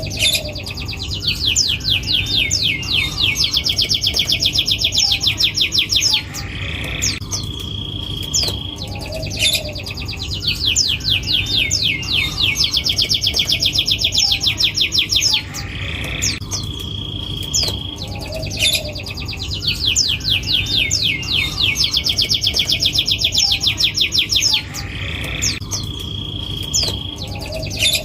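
Domestic canary singing: a held high whistle, then long runs of very rapid trilled notes, about ten a second. The same phrase repeats about every nine seconds as a looped song-tutor recording, over a faint steady low hum.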